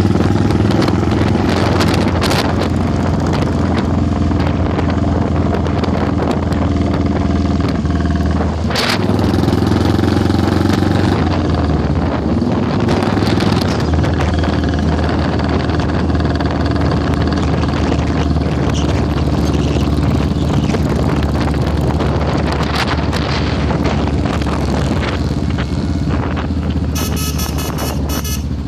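Motorcycle engine running steadily while riding along in a group of motorcycles, heard from the rider's own bike. A brief sharp knock about nine seconds in.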